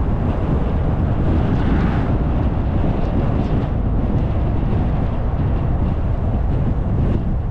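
Steady road and wind noise of a moving car: a dense, deep rumble that holds even throughout.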